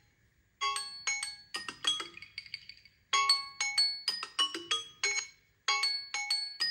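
Samsung Galaxy phone alarm tone: a short, bright chiming melody of quick notes, repeating about every two and a half seconds.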